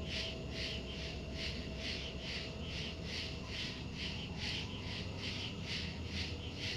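Steady rhythmic high chirping, about four pulses a second, from a calling animal, over a constant low hum.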